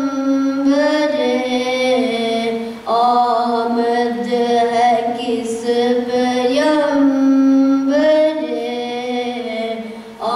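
A boy's solo voice singing a naat unaccompanied through a microphone, drawing out long, ornamented held notes. He pauses for breath about three seconds in and again just before the end.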